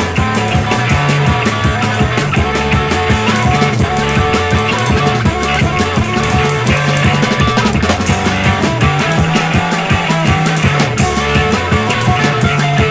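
Electric blues boogie instrumental played by two electric guitars and a drum kit, with no bass.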